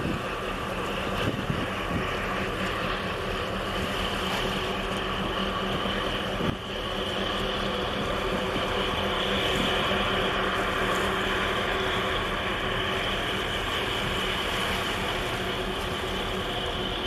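Steady engine drone from the ship traffic in the harbour channel, a continuous hum with a faint constant whine above it.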